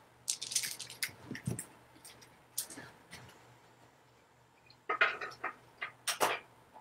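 Light clicks and rustles of a beaded necklace being handled and a person getting up and moving about, with a dull thump about a second and a half in and a tighter cluster of sharper clicks near the end.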